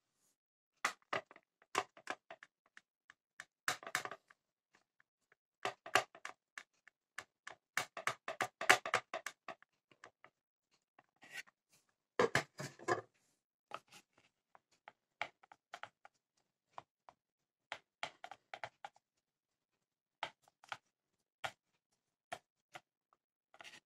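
Scattered light clicks, taps and rustles of hands handling kitchenware on a wooden rolling board: a plate set down and dough pressed into dry flour. The sounds come in irregular clusters with short silences between them, the loudest about twelve seconds in.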